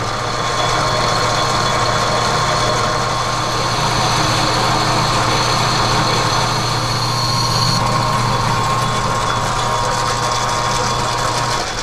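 A metal lathe running with a steady motor and gear whine while its tool takes a light facing cut across a heat-treated 4140 steel part, the cutting adding a hiss. The sound falls away near the end as the cut finishes and the lathe is stopped.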